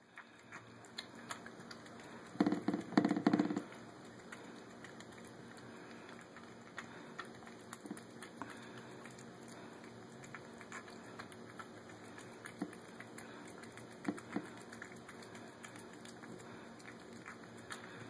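A cat eating wet food from a plate: small irregular wet clicks and smacks of chewing and licking. A louder, brief pulsing burst comes about two and a half seconds in.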